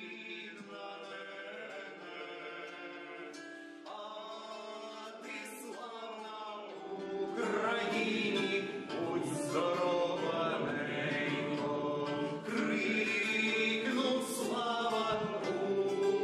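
Several voices singing together in long held notes, like a choir; quieter at first, then louder and fuller from about seven seconds in.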